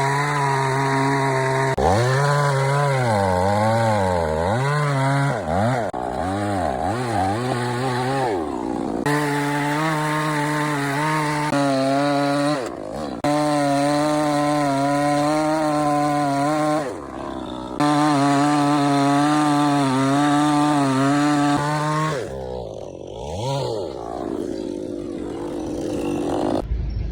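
Chainsaw running and cutting wood. Its pitch dips and wavers under load and recovers, and the sound breaks off abruptly several times.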